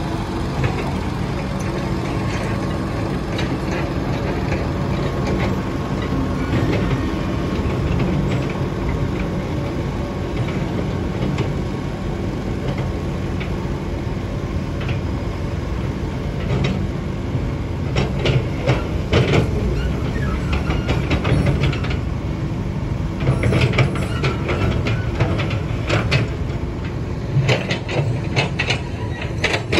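Diesel engine of a single-drum road roller running steadily, with irregular metallic clanks and rattles that grow more frequent in the second half.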